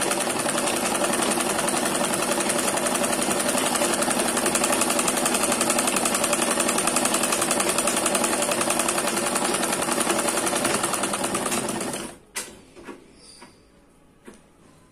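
Domestic sewing machine running and stitching at a fast, steady rhythm, then stopping abruptly about twelve seconds in, followed by a few light clicks. Its feed dogs have just been raised 1 to 1.5 mm, and the cloth now feeds forward on its own.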